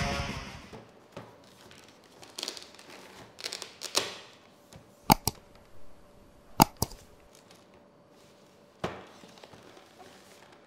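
Cardboard figure box being handled and its front flap opened: soft scrapes and rustles, with two pairs of sharp clicks around the middle.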